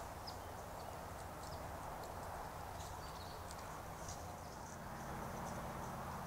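Steady hiss of a trail camera's microphone in open woods, with scattered faint, short high-pitched ticks or chirps.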